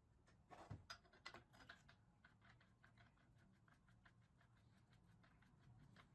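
Near silence with faint small clicks and taps: a quick cluster in the first two seconds, then scattered light ticks.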